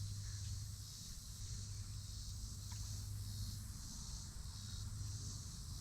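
Insects droning in a steady high chorus that pulses faintly, over a low steady hum.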